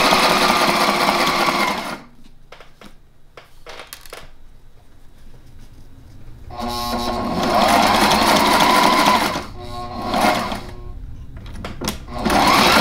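Electric sewing machine stitching a zipper into a cushion's zipper plaque, running in starts and stops. It runs for about two seconds, falls quiet apart from a few handling clicks, runs again for a few seconds from the middle with its motor speeding up and slowing, and starts up once more near the end.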